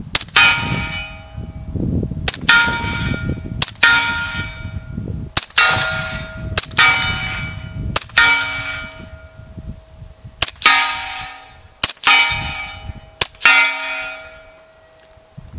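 Nine suppressed pistol shots from a 10mm Glock 40 fitted with a Rugged Obsidian 45 suppressor, fired in three strings of three. A split second after each shot a steel target rings with a long, fading metallic tone.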